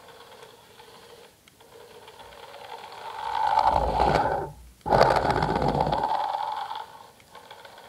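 Remote-control car's motor running, throttled up in two loud bursts of about a second and a half each with a brief cut between them, over a faint steady hum.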